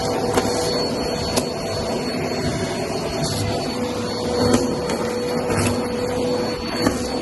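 Vacuum cleaner running steadily on carpet with a constant hum and a thin high whine, and a few sharp clicks scattered through.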